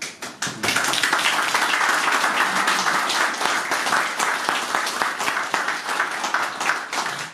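Small audience applauding: a few separate claps at first, quickly swelling into steady clapping from many hands, which thins out near the end.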